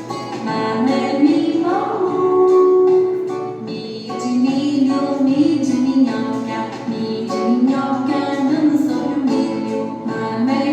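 A song: a woman singing a melody over instrumental accompaniment with regular sharp strokes.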